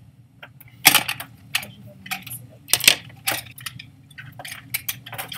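Small hard makeup items, brushes and plastic cases, clicking and clattering as they are sorted through for a different brush. The clicks come irregularly, the loudest about a second in and again near three seconds.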